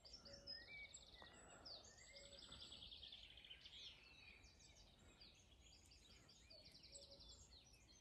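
Faint woodland birdsong: several songbirds singing at once, with rapid high trills and scattered chirps.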